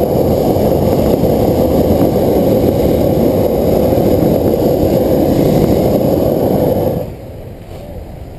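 Hot air balloon propane burner firing one long, loud, steady blast that cuts off suddenly about seven seconds in.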